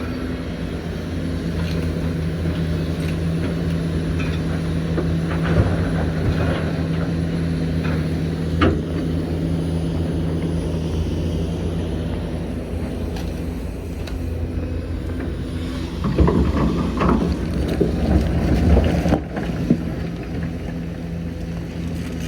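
Hitachi Zaxis 490LCH excavator's diesel engine running steadily under hydraulic load, with a few sharp knocks and, past the middle, a rough clatter a few seconds long as material is dug and loaded.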